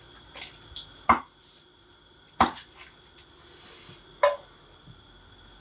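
Three sharp knocks of kitchen handling, spaced about a second or more apart, as a knob of butter is put into a frying pan on a gas hob.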